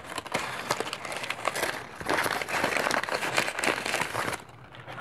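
Brown paper gift wrapping crinkling and rustling as it is pulled open by hand, dying down about four seconds in.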